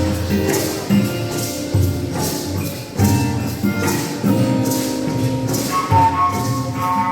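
Music with rattling, shaken percussion and low drumbeats roughly once a second. A higher held melodic line comes in about six seconds in.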